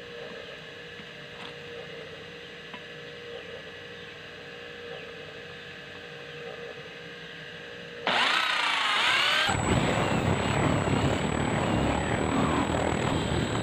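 Cordless drill starting up about eight seconds in with a wavering motor whine, then the bit biting into steel angle iron, a loud steady drilling noise to the end.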